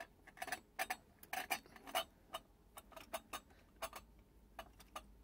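Irregular light clicks and taps of metal carburettor parts knocking together as the float bowl of a Zenith 48 VIR carburettor is worked into place under the carburettor body and lined up.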